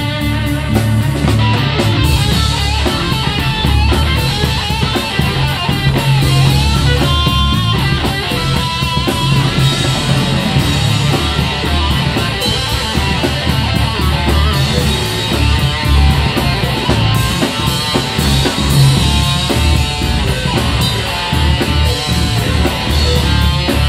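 Live rock band playing loudly: electric guitar over a drum kit.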